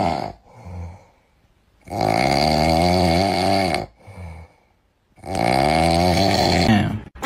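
Snoring from a dozing cat, on a green-screen meme clip. Two long, loud snores of about two seconds each begin about two seconds and about five seconds in, with short, quieter breaths between them.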